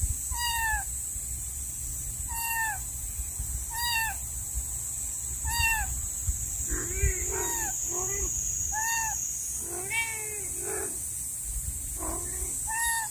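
A six-week-old kitten meowing over and over in short, high-pitched cries, one about every one and a half to two seconds. From about seven seconds in, lower-pitched meows from an adult cat, its mother, answer between the kitten's cries.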